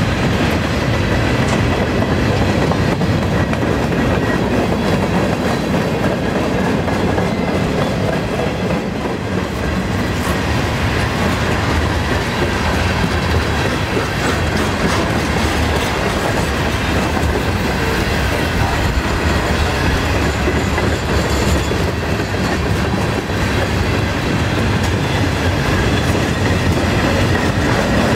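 Freight cars of a long mixed freight train rolling past at about 18 mph, steel wheels clacking over the rail joints over a steady rumble.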